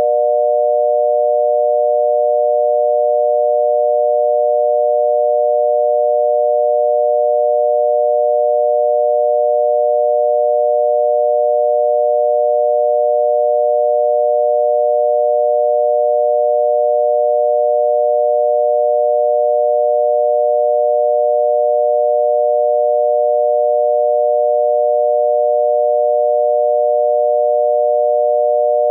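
Obsolete Canadian telephone dial tone B: a 600 Hz tone amplitude-modulated by 120 Hz, sounding as one steady, unbroken tone. It is the signal that the line is connected and ready for the caller to dial.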